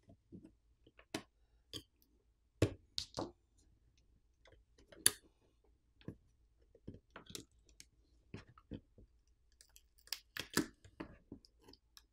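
Irregular small clicks and taps of a pry tool working against the phone as the glued battery is pried out, its adhesive softened with isopropyl alcohol. A few sharper knocks stand out, about a third of the way in, midway and near the end.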